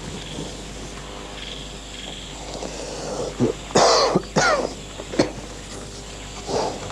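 Faint crickets chirping, then a man coughing several times in harsh bursts, hardest about four seconds in.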